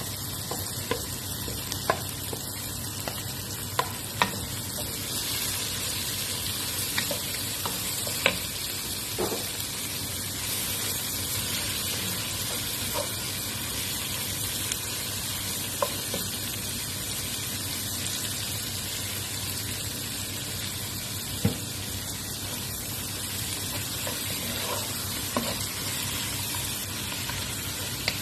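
Chopped onion, tomato and grated carrot sizzling steadily in oil in a nonstick pot as a wooden spoon stirs them, with occasional sharp taps of the spoon against the pan.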